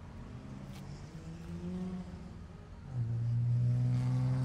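A motor vehicle engine running: its low note climbs gently, then about three seconds in it becomes louder and holds steady.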